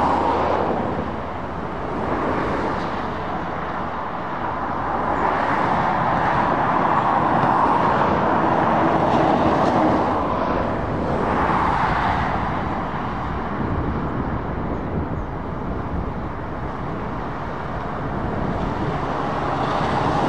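Passing traffic on a dual carriageway: a continuous wash of tyre and engine noise that swells and fades several times as vehicles go by. The longest, loudest swell comes a few seconds before the middle as a Volvo FH 500 articulated lorry passes close.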